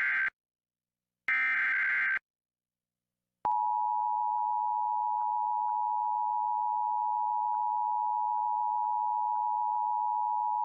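Emergency Alert System SAME header: the end of one short burst of digital data tones and a second full burst, the coded header of a fire warning. About three and a half seconds in, the steady two-tone EAS attention signal (853 and 960 Hz) starts and holds.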